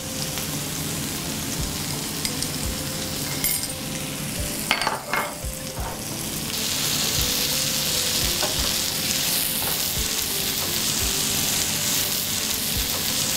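Onions, capsicum and tomatoes frying in oil on a hot tava, a steady sizzle that gets louder about six seconds in, once curds have gone into the pan. A couple of light taps come before that, and the mixture is stirred with a wooden spatula.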